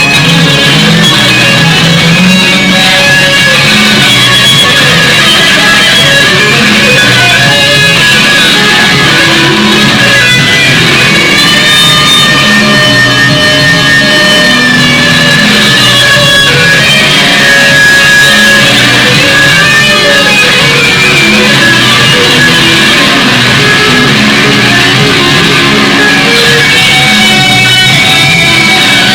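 Loud guitar music, plucked and strummed, with a rock feel.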